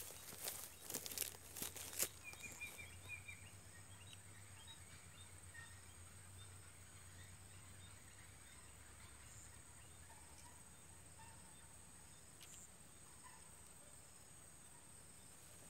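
Faint streamside ambience: a steady high-pitched insect drone with a few short bird chirps. Rustling and a few knocks in the first two seconds are the loudest sounds.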